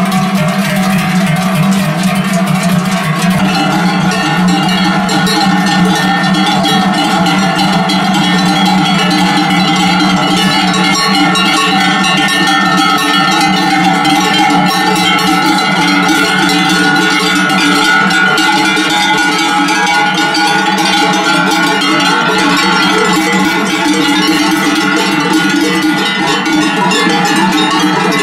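Many large cowbells worn by a herd of cattle being driven down from alpine pasture, clanging together in a dense, continuous jangle.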